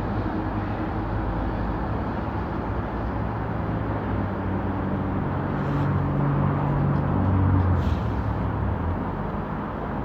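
A motor vehicle's engine running close by over steady traffic noise: its low hum swells from about four seconds in, is loudest about three quarters of the way through, then fades away.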